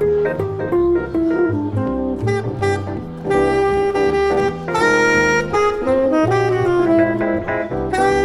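Tenor saxophone playing a jazz melody line, including a long held note about five seconds in, with the group accompanying.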